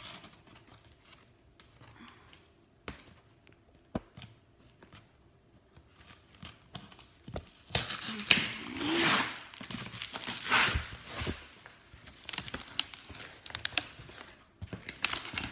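Packing tape being peeled and ripped off the top of a cardboard shipping box, with light taps and handling of the cardboard first and several loud, rough tearing rips from about halfway in.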